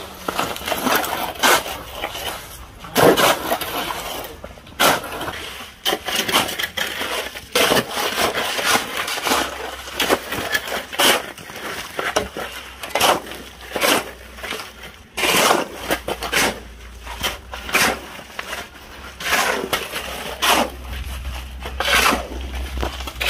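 Steel shovels scraping and scooping through damp concrete mix on bare ground, gravel grating against the blades in quick, irregular strokes.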